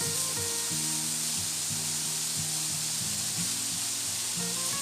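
Steady rush of a waterfall, a dense even hiss, with background music playing over it.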